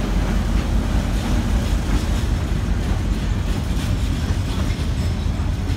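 Container freight train's wagons rolling past: a steady, loud low rumble of wheels on rails, with faint repeated clacks over the rail joints.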